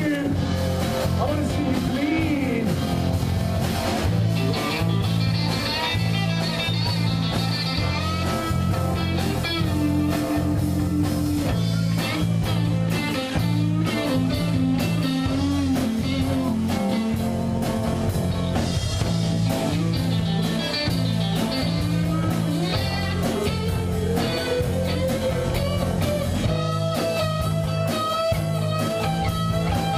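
Live rock band playing: electric guitars, bass guitar and a drum kit, with a lead line sliding and bending in pitch over a steady beat.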